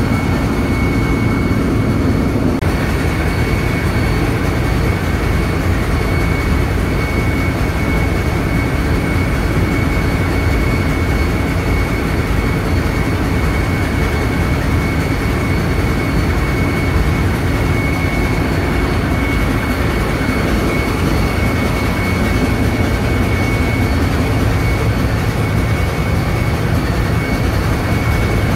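Steady din of a ship's engine-room machinery running, a constant low rumble with a thin high whine held over it.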